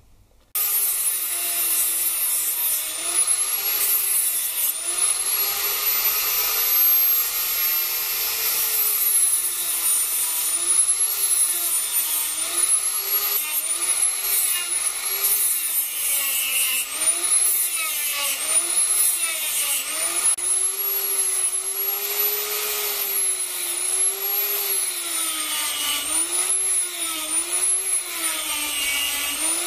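Die grinder with a sanding drum switched on about half a second in, running with a high whine whose pitch sags again and again and then recovers, as the drum is pressed into the wooden knife handle to cut grooves and lifted off.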